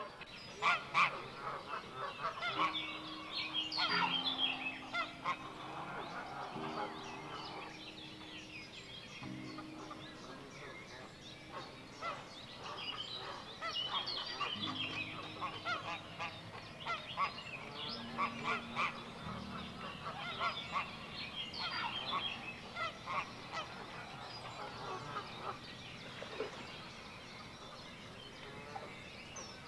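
A flock of geese honking: many short calls overlapping and coming in clusters, with low held tones underneath.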